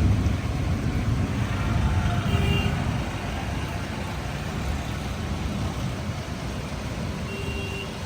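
Thunderstorm: steady rain noise under a deep rumble of thunder that eases after about three seconds.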